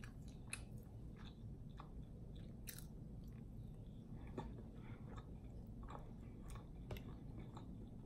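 Faint close-miked chewing of a corn dog, with scattered small clicks.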